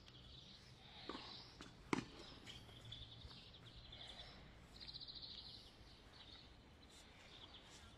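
Faint birdsong, short chirps with a quick trill about five seconds in, and two sharp clicks a second and two seconds in from Subbuteo figures being flicked on the table, the second click the louder.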